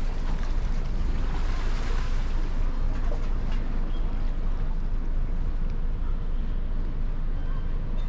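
Steady outdoor noise with a flickering low rumble of wind on the microphone and an even hiss above it.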